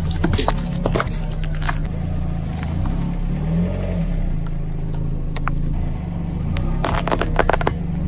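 Car engine running slowly under a steady low drone, with sharp cracks and crunches as objects break under the tyre: a few in the first second and a dense burst of cracking about seven seconds in.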